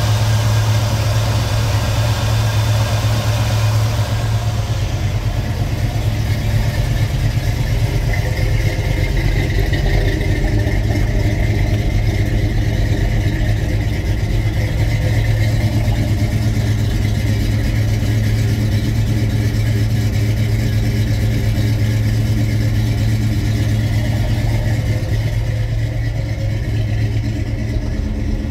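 1979 Ford Bronco's V8 engine idling steadily, warmed up to operating temperature.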